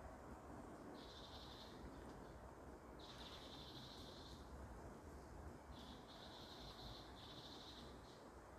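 A small bird in the forest giving a series of high, buzzy trills, each about a second long, four or five times in a row, over a faint low rumble.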